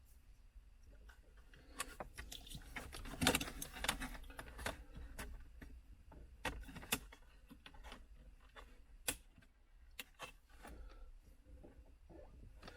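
Irregular light clicks and knocks of hard objects being handled, busiest in the first few seconds, with a few single sharper clicks later, over a faint low hum.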